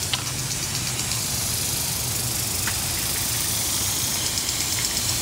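Garden sprinkler spray hissing steadily, with a fine rapid flutter in the hiss, over a low rumble.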